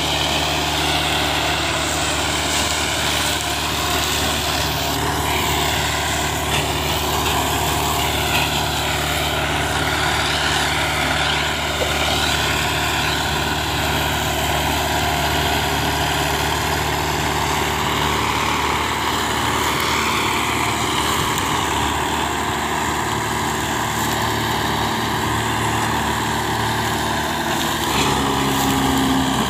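Old Hindustan tractor's diesel engine running steadily under load, pulling a loaded sugar cane trailer, with a wavering higher whine over it. The engine note changes near the end.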